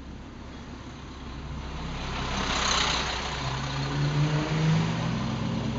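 Road traffic heard from inside a car: a steady low engine hum, a brief rush of hiss about two and a half seconds in, then an engine note climbing in pitch as vehicles accelerate.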